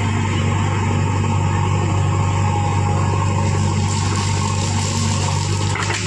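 JCB 3DX backhoe loader's diesel engine running steadily under load as the backhoe bucket digs into and lifts crushed stone, with a short knock near the end.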